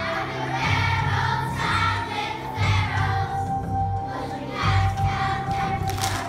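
A group of young children singing a song together over a recorded backing track with a steady pulsing beat.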